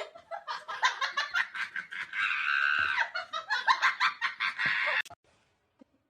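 A person laughing hard in rapid, high-pitched bursts, which cut off suddenly about five seconds in.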